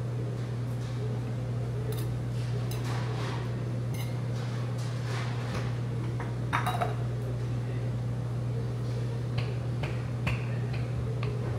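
Eating utensils clinking and tapping against bowls and dishes during a meal, in scattered light clicks with a louder clink about six and a half seconds in. A steady low hum lies underneath.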